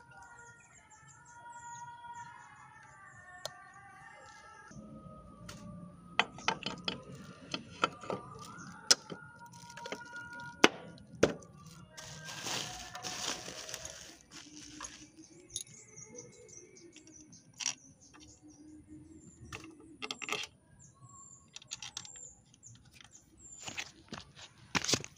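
Scattered metallic clicks and knocks as the aluminium left-side magneto cover of a Honda Astrea Grand engine is fitted by hand over the flywheel. There is a short scraping rush about twelve seconds in, and a few sharp clicks near the end.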